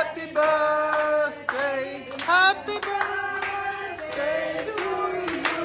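People singing a birthday song over hand claps, holding long sung notes between the claps.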